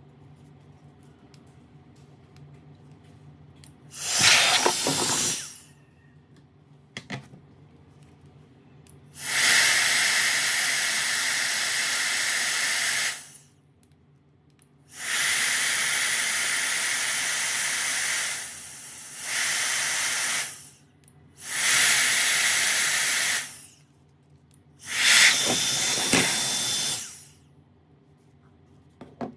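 Handheld jet turbine fan with a brushless turbo motor blowing in five separate bursts of loud rushing air, each starting and stopping abruptly after two to five seconds. The third burst dips briefly midway before picking up again.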